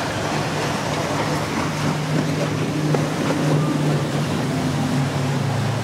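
Cabin cruiser's engines running at speed as it passes, a steady drone that grows stronger about a second and a half in, over the rush of its wake, spray and wind.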